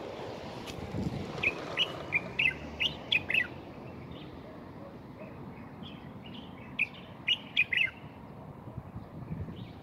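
Common bulbul calling: a quick run of short, sharp chirps about a second and a half in, and another run near seven seconds.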